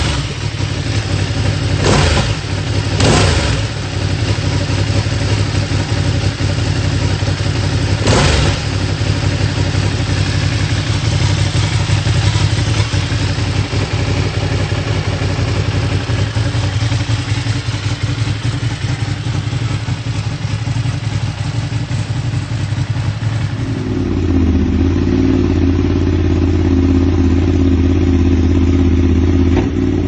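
Ducati Panigale V2's 955 cc L-twin running loud through an aftermarket exhaust, with sharp exhaust pops about 2, 3 and 8 seconds in. About 24 seconds in it changes to a steady, deep idle from another Panigale V2 with a Termignoni exhaust.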